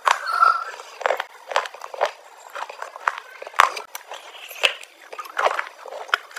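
Close-up crunching and chewing of a hard, brittle gray chunk: a series of sharp, irregular crunches, roughly one or two a second, between quieter chewing.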